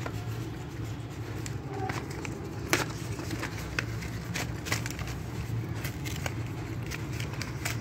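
Thick slate pencils clicking against one another, and the plastic bag they lie in rustling, as hands rummage through the pile. The clicks are scattered and irregular, the sharpest nearly three seconds in, over a steady low hum.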